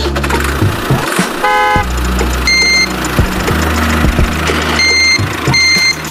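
Tractor engine running with a low, steady drone. A horn honks once about a second and a half in, and three short high beeps sound in the second half.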